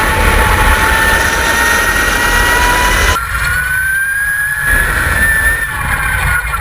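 Electric race motorcycle's motor whining at speed: a high, jet-like whine that slowly rises and falls in pitch over low wind and road rumble. The sound changes abruptly about three seconds in.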